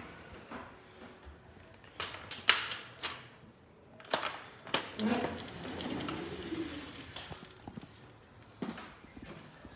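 Scattered sharp knocks and clicks from a handheld phone being moved about while walking, with a brief low voice sound in the middle.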